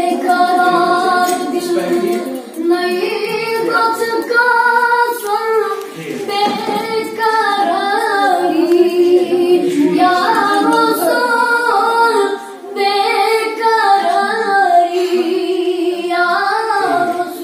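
A girl singing a slow Hindi-Urdu song unaccompanied, with long held notes that waver and slide between pitches. She breaks off briefly between phrases about six and twelve seconds in.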